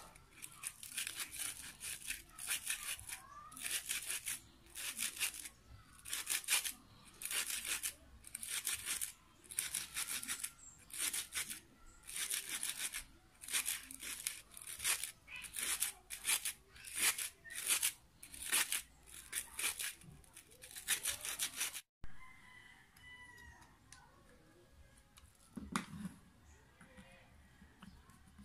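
Hand screwdriver turning screws out of an electric planer's plastic housing, a rasping scrape with each twist at about one a second. It then gives way to quieter handling of the parts, with one dull knock.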